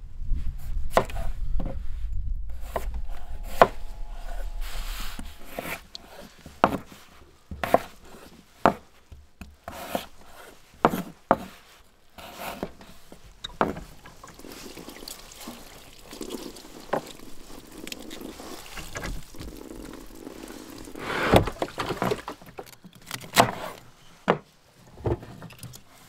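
Food being prepared on a wooden cutting board: scattered knocks and taps of a knife and vegetables being handled and cut, with a low rumble in the first five seconds and a louder clattering rustle a few seconds before the end.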